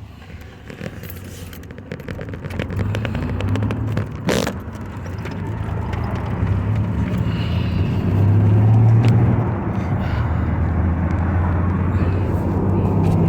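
A car's engine and road noise heard from inside the cabin, a steady low drone that grows louder as the car picks up speed, then holds. A few light clicks and one sharp knock come about four seconds in.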